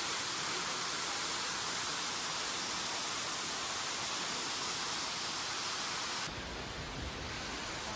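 Steady rushing water, a dense even hiss. About six seconds in it changes abruptly to a duller, deeper rush.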